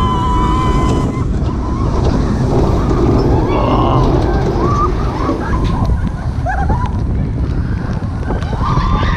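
Euromir roller coaster heard from on board: a steady loud rumble of the train on the track and wind buffeting the microphone. A few brief, rising high-pitched sounds cut through it.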